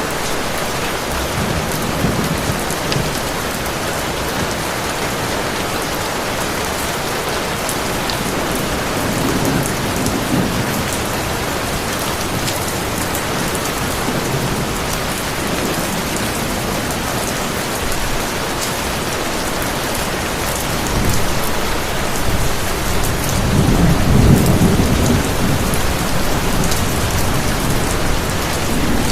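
Heavy rain pouring steadily, with a few low rolls of thunder; the longest and loudest roll comes late.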